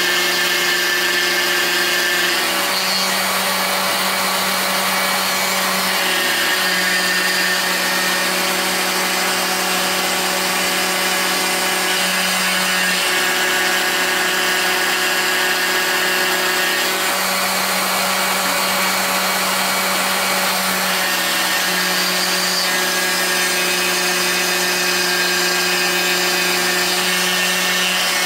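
Proxxon IBS/E rotary tool running steadily as a CNC router spindle, its bit milling a shallow contour into a wooden board. Over it, the machine's stepper-motor whine changes pitch every few seconds as the cutter moves along each side of the contour.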